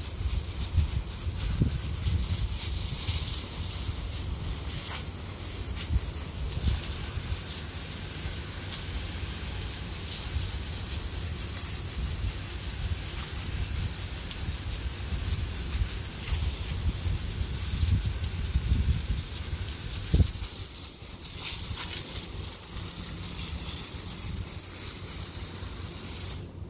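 Water spraying from a hose nozzle onto a concrete kennel floor, a steady hiss with an uneven low rumble underneath. The spray cuts off suddenly right at the end.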